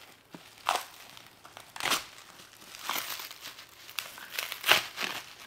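Gift wrapping crinkling and rustling as a present is unwrapped by hand. The sound comes in several short bursts, and the loudest is near the end.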